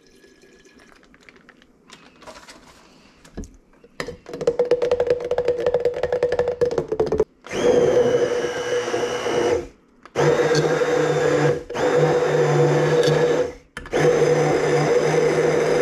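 Stick blender pureeing fermented jalapeño mash, switched on about four seconds in and then run in several bursts of two or three seconds with brief stops between. The first run has a dense rattle of clicks.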